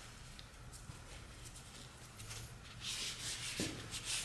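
Gloved hands handling parts at a milling machine's power feed: a faint steady hum, then a short rubbing noise about three seconds in.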